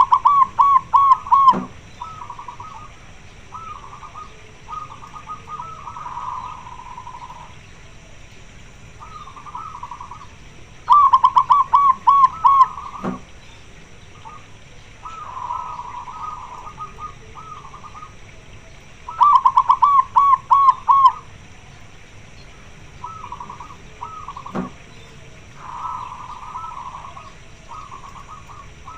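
Zebra dove (perkutut) cooing: loud phrases of quick, repeated rolling notes at the start, about 11 s in and about 19 s in, with softer coos in between. The singer is a local female perkutut calling for a mate.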